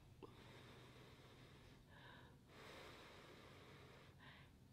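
Near silence: a person chewing a mouthful of food with lips closed, with two faint breaths through the nose.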